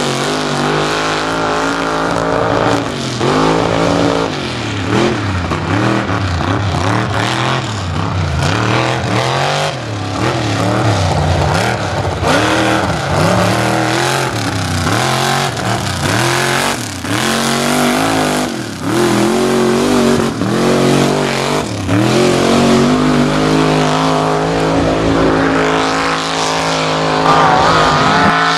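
Mud trucks' engines revving hard through a mud pit, the pitch climbing and dropping again and again as the drivers work the throttle.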